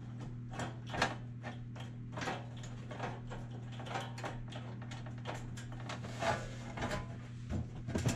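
Butt welding clamp being tightened by hand on sheet-metal panels: irregular small metallic clicks and scrapes, roughly two a second, as the threaded screw turns and the clamp seats. A steady low hum runs underneath.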